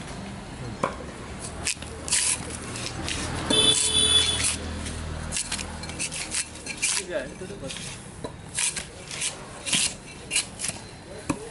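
A drawknife scraping bark and wood off an upright log section in a run of short rasping strokes, coming faster in the second half. A brief squeal sounds about a third of the way in.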